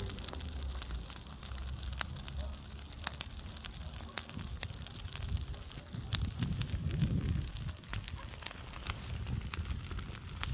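Large bonfire crackling, with many sharp pops scattered irregularly over a low rumble that swells about two-thirds of the way through.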